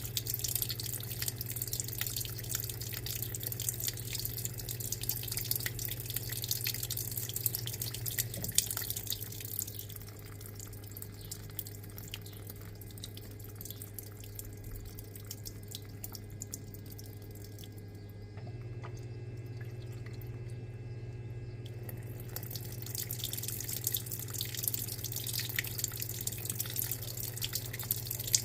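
Electrolux LTA15 washing machine running with water, a steady low hum under splashing and trickling water. The water noise drops away about a third of the way in and builds back up near the end.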